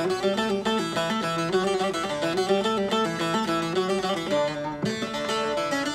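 Bağlama (long-necked Turkish saz) played fast, a steady run of quick plucked notes in a lively dance tune.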